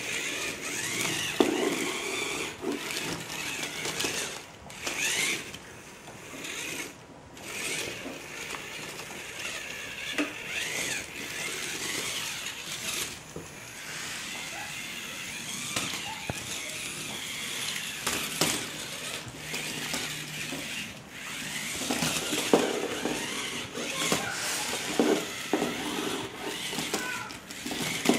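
Small DC gear motors of a Tamiya tracked robot chassis whining and its plastic tracks clattering as it drives, starting, stopping and turning in short runs. The motor whine rises and falls in pitch with speed, and there are brief pauses between runs.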